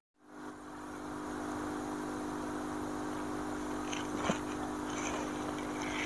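A steady low machine hum of several fixed tones, beginning just after a brief moment of silence, with a faint click about four seconds in.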